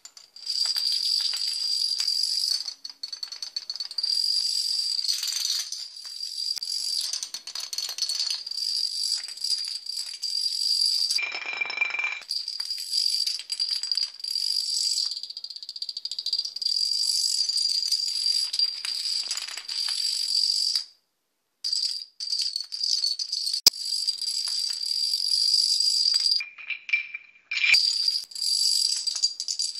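Small plastic dominoes toppling in a chain on a wooden parquet floor: a fast, continuous clicking rattle, broken by a short gap about two-thirds of the way through.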